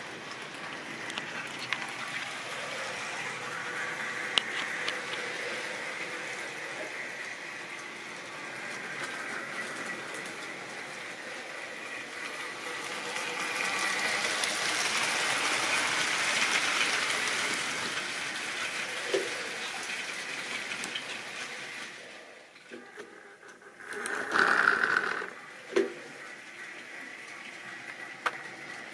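Model railway train running on the track: a small electric motor whirring with wheel noise, swelling to its loudest about halfway through and then dying away, with a few sharp clicks and a short louder noise near the end.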